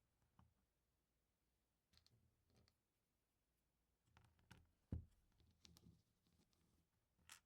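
Faint, scattered clicks and taps of LEGO pieces being handled and pressed together, with a louder, duller knock about five seconds in and a sharp click near the end.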